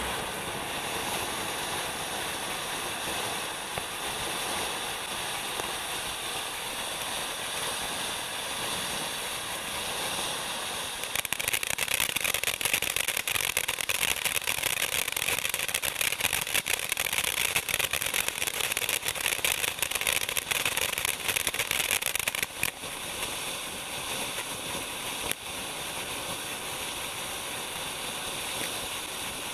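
Ground fountain firework burning with a steady hiss as it sprays sparks. About a third of the way in, dense crackling from its crackling stars joins the hiss and goes on for roughly ten seconds. Then the fountain settles back to a plain hiss, with one small pop near the end.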